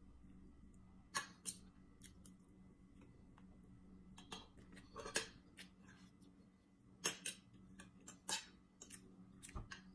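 Eating sounds: a metal spoon and fork clicking and scraping against a plate, with chewing, as a scatter of short sharp clicks.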